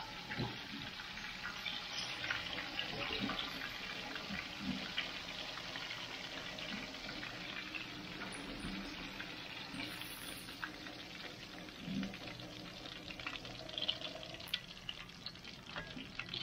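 Potato-starch-coated mud crabs deep-frying in a wok of hot oil: a steady crackling sizzle, with the odd light tap of metal tongs against the strainer.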